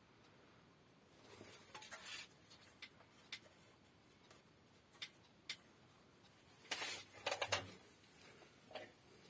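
Scattered small clicks and short scraping, rustling noises of small hardware and tools being handled on a workbench, with the loudest cluster of scrapes a little past the middle.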